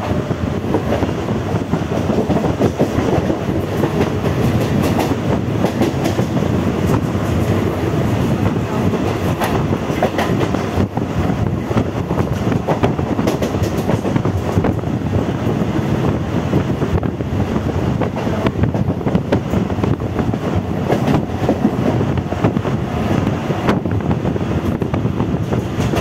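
Moving passenger train heard from inside the carriage: a steady running rumble with the wheels clattering over the rails.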